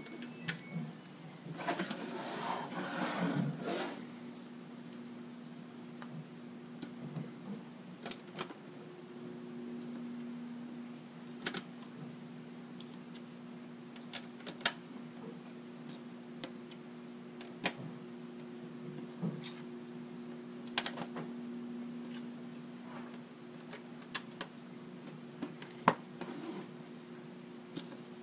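Small LEGO pieces clicking as they are picked up and pressed onto a baseplate, single sharp clicks every few seconds, with a longer rattle of loose pieces about two seconds in. A faint steady hum runs underneath.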